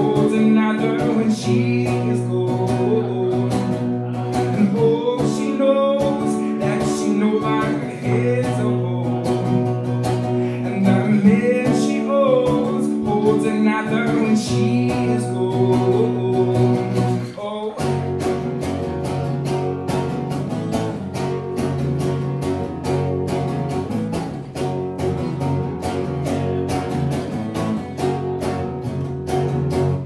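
Man singing an indie-pop song to his own acoustic guitar. A little over halfway through the voice drops out and the guitar carries on alone with fast, even strumming.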